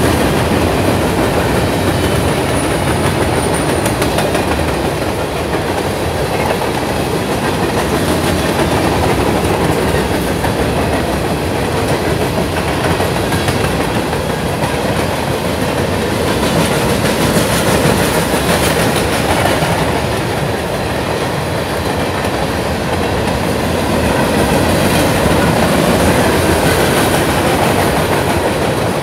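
A CSX freight train's covered hopper cars rolling steadily past, with the steady rumble of steel wheels on rail and the click of wheels over the rail joints.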